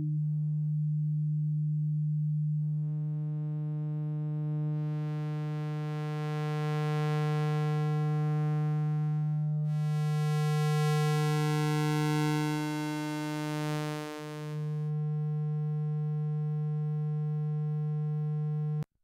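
Eurorack analog oscillator holding one steady low tone while its waveform is reshaped: it starts as a nearly pure sine, overtones swell in a few seconds in to make it brighter and buzzier, and it settles toward a triangle wave. The tone cuts off suddenly near the end.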